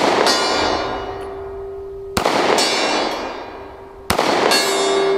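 Steel gong ringing from a pistol hit, then two more shots from a Taurus GX4 9mm micro-compact pistol, about two and four seconds in, each followed at once by the gong ringing again with a long fading ring.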